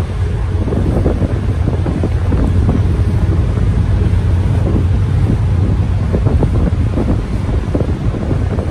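Car ferry under way: a steady low rumble of engines and churning wake, heavily buffeted by wind on the microphone.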